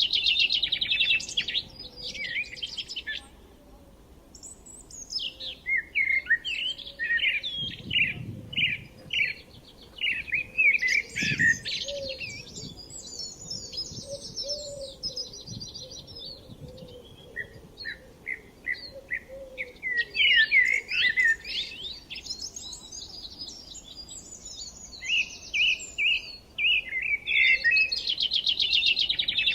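Songbirds singing: a run of varied phrases of quick chirps and rapid trills, coming in bursts with short pauses, loudest at the start and again near the end.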